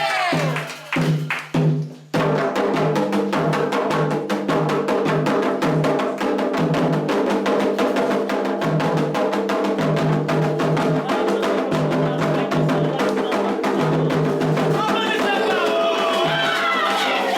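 Candomblé ritual drumming: atabaque hand drums and sharp struck percussion in a fast, steady rhythm. After a brief break with a few strikes, the drumming starts up again about two seconds in, and sung chanting returns near the end.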